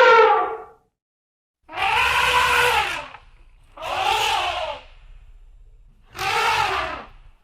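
An animal call repeated three times, each harsh call lasting about a second with a pitch that rises and falls, separated by short gaps, after the tail of an earlier call at the start.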